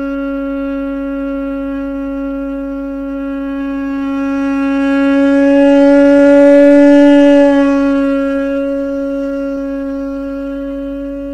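A blown horn holding one long steady note, rich in overtones, swelling louder in the middle and easing back.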